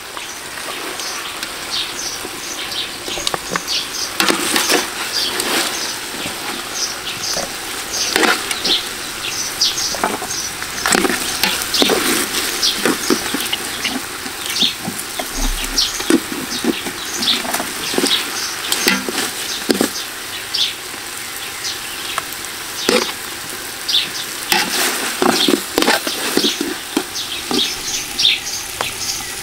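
Thick braising sauce sizzling and popping in a large aluminium pot, with many irregular sharp pops. Metal tongs clink and scrape against the pot as the braised pig's head pieces are lifted out.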